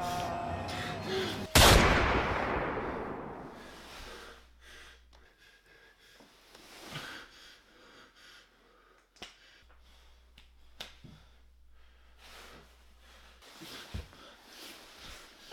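A single gunshot about a second and a half in, followed by a long echoing decay. After it come only faint scattered clicks and breaths.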